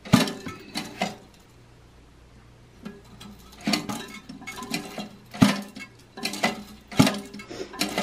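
A toilet tank's metal flapper chain and flush lever arm clinking and knocking against the porcelain tank as the chain is re-hooked onto the lift arm. It is a run of sharp clinks with a short ring after each, with a quiet stretch from about one to three seconds in.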